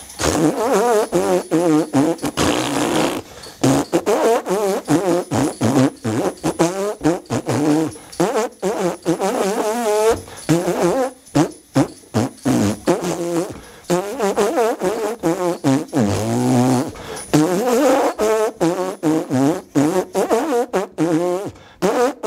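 A song made of fart noises: rasping pitched tones that waver up and down in a melody, over clacking percussion.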